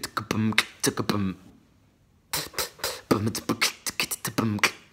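A man beatboxing: quick mouth-made clicks and pops mixed with short hummed notes, stopping for about a second midway and then starting again.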